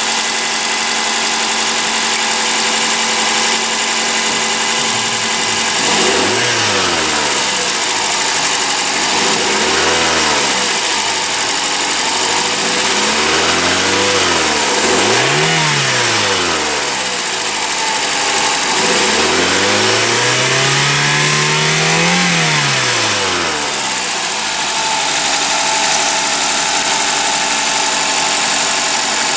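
2010 Suzuki Swift Sport's M16A 1.6-litre four-cylinder engine idling, then revved five times, each rev rising and falling back. The last rev climbs slowly and is held longest before the engine settles back to a steady idle.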